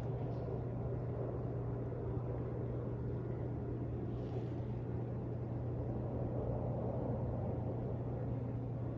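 Steady low rumble of a distant aircraft passing overhead, swelling slightly near the end, over a constant low hum.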